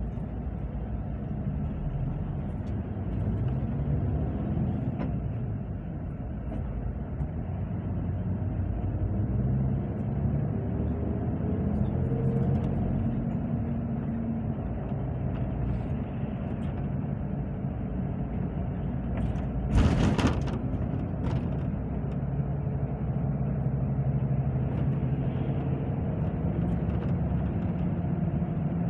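Engine and road noise inside a moving road vehicle, the engine note rising and falling as it changes speed. A short, loud burst of noise comes about twenty seconds in.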